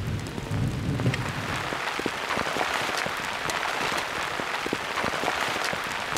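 Steady heavy rain falling, an even hiss flecked with many separate drop ticks.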